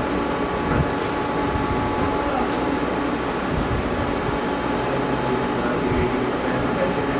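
Steady machine hum and hiss from a powered-up CNC lathe standing with its spindle stopped, with a faint steady whine over it.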